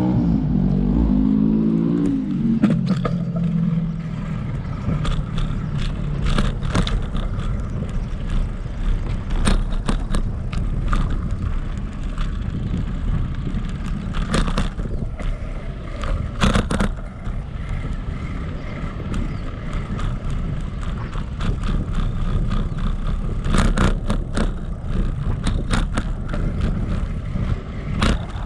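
A bike ridden over concrete and asphalt paths: a steady rumble of tyres and wind on the microphone, with scattered clicks and rattles as it rolls over cracks and joints. It opens with a short rising whine.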